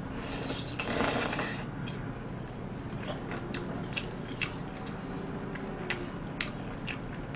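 Close-up eating sounds from a person eating tteokbokki: a short slurp as a piece goes into the mouth about half a second in, then chewing with scattered light clicks.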